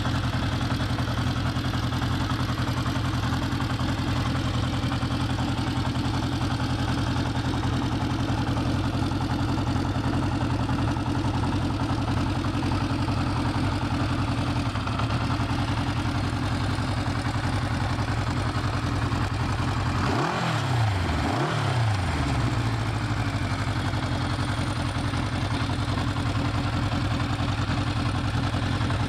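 Honda CB500 Four's air-cooled inline-four engine idling steadily, briefly revved twice about twenty seconds in.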